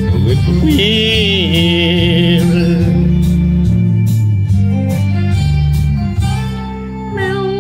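Instrumental passage of a country ballad: acoustic guitar and bass under a steel guitar playing sliding, wavering lead notes, easing off slightly near the end.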